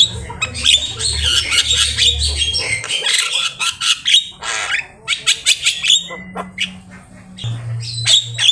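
Javan myna singing a fast, chattering song of harsh squawks, sharp clicks and short whistled notes, with a steady low hum underneath at times.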